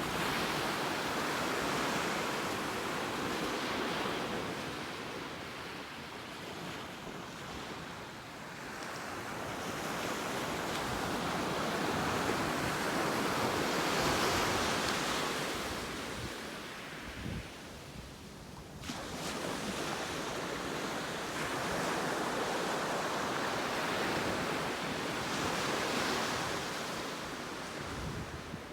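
Ocean surf breaking on the beach, a steady wash of waves that swells and fades every few seconds, with some wind on the microphone.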